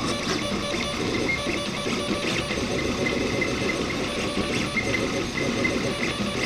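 RepRap Prusa Mendel 3D printer printing, its stepper motors buzzing and whining in short, changing tones as the print head and bed shuttle back and forth laying infill.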